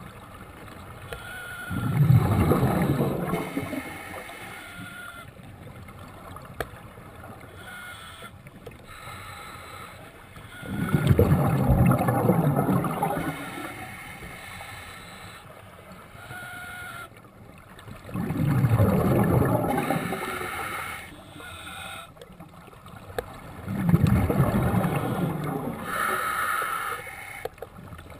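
Scuba regulator exhaust bubbles gurgling out in four bursts several seconds apart, one per breath, with quieter hiss between, heard underwater.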